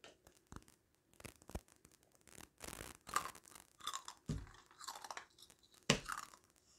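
Close-miked chewing and crunching of fried chicken wings, in irregular bursts, with a few sharp clicks and knocks in between.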